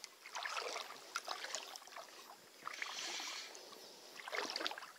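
Irregular splashing and sloshing of water as a hooked small asp is drawn in and landed, in bursts about half a second in, around three seconds and near the end.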